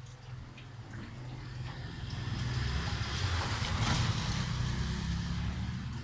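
A motorcycle tricycle drives past on a wet street. Its engine hum and the hiss of its tyres on the wet road grow louder, are loudest about four seconds in, then fade.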